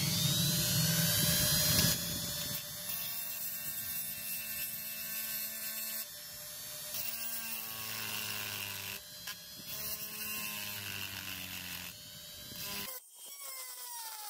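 Handheld rotary tool with a small cylindrical grinding bit running at high speed and grinding metal, a high whine over a grinding hiss whose pitch shifts as the bit bites into the notched edge of a metal washer.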